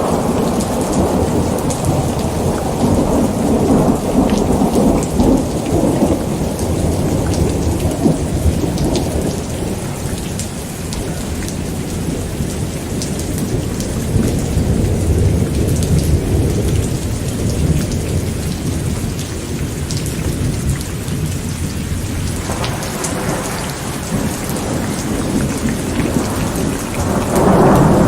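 Steady rain pattering on surfaces with rolling thunder, the low rumble swelling in the first few seconds, again about halfway through and again near the end.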